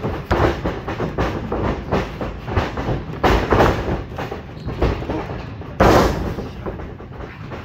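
A run of thumps and smacks as wrestlers' feet and bodies hit the ring canvas. The loudest comes about six seconds in, as one wrestler goes down on his back onto the mat.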